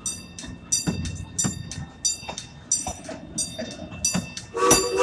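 Open passenger coach of a steam train running with a quick, regular clicking from the running gear. Near the end the steam locomotive's three-chime whistle starts a loud blast.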